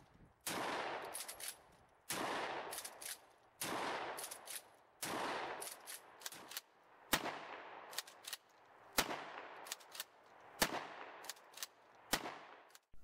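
Franchi pump-action 12-gauge shotguns fired in a steady string, about one shot every one and a half seconds, with the clack of the slide being racked between shots. The first few shots have a long ringing tail; the later ones are sharper and shorter.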